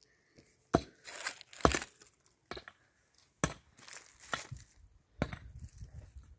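A run of about seven sharp cracks and knocks at uneven spacing, roughly one a second, some with a brief tearing rasp: hand work on rough material.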